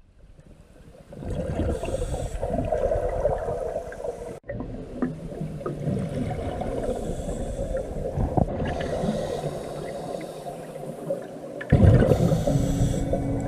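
Underwater sound of a scuba diver breathing through a regulator: rushing inhalations and gurgling, bubbling exhalations, muffled as heard through a camera housing, with a loud bubbling surge near the end. Soft ambient music fades in over the last second or so.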